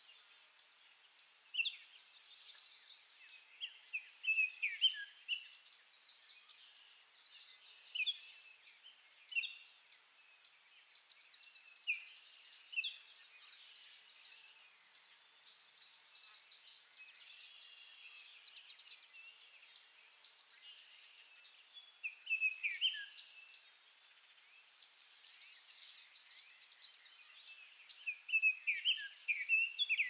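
Forest ambience: songbirds calling in short falling chirps, in small bursts every few seconds and busiest near the end, over a steady high insect drone.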